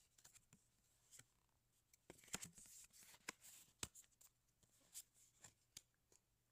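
Faint clicks and rustles of a stack of Magic: The Gathering trading cards being handled and flipped through card by card, busiest in the middle.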